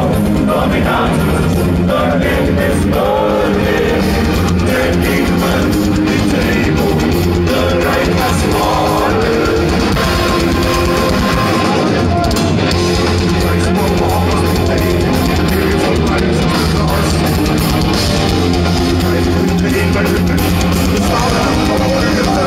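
Heavy metal band playing live over a festival PA, heard from within the crowd: loud, unbroken guitars and singing.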